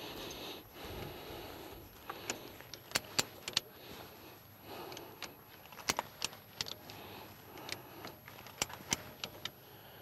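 Hand come-along ratchet cranked to stretch woven wire fencing: sharp metallic clicks, about a dozen, coming irregularly in small clusters as the fence is drawn tight.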